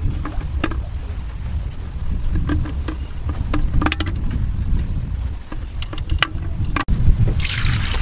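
Eggs clicking against each other and the clay pot as they are set in by hand, over a steady low rumble. Near the end, coconut water starts pouring into the pot with a splashing rush.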